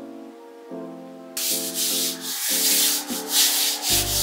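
Brisk scrubbing, a rough rubbing noise in quick back-and-forth strokes, starting about a second and a half in over soft background music.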